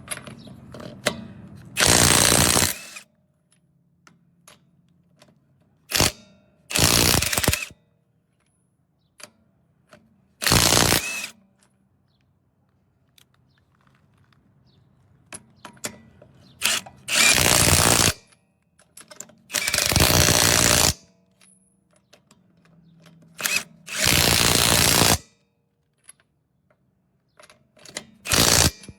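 Cordless impact wrench hammering in about seven short bursts with pauses between them, run against lug nuts.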